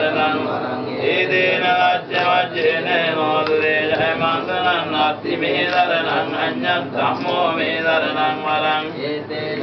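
Buddhist chanting of Pali verses: a voice reciting in a continuous, melodic chant.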